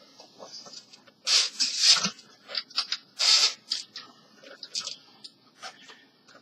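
Plastic bag and styrofoam packaging rustling and rubbing in a few short bursts, with scattered light clicks and knocks.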